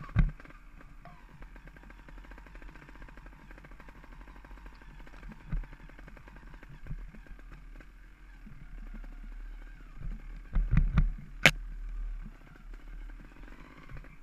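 Mountain bike rolling down a rocky, gravelly trail: continuous rattle of the bike and crunch of tyres on stones. Hard knocks over bumps near the start and about five seconds in, then a burst of heavy knocks ending in a sharp metallic clack about eleven seconds in.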